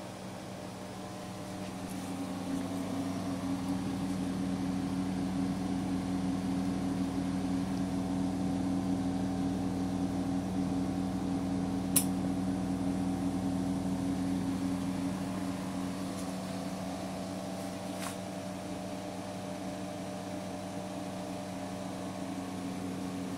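Magnatech Tubemaster orbital welding machine running with a steady hum that builds up about two seconds in and eases off in the second half. A single sharp click comes about halfway through.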